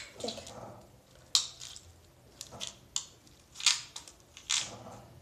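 About half a dozen short rustles and scrapes of hands handling a small object close to the microphone, scattered unevenly.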